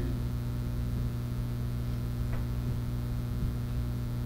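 Steady electrical mains hum with its overtones, and a faint click about two and a half seconds in.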